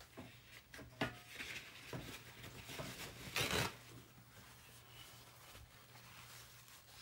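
A paper towel being handled: soft rustling with a faint click about a second in and a louder, brief rustle about three and a half seconds in.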